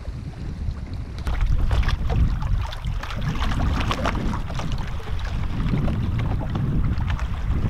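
Wind buffeting the microphone in a steady low rumble, with small lake waves lapping and splashing irregularly against shoreline rocks.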